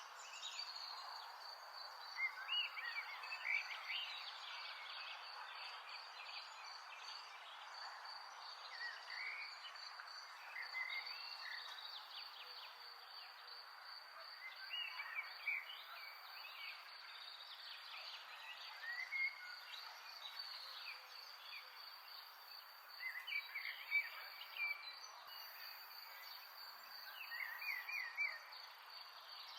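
Outdoor nature ambience: a steady high-pitched insect trill throughout, with scattered short chirping calls coming in clusters over a soft background hiss.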